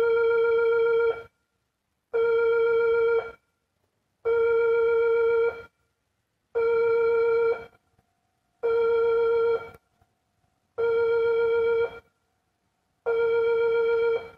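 Electronic railway warning alarm sounding a pitched tone over and over, each tone about a second long with a short gap between, about every two seconds: the signal that a train is approaching.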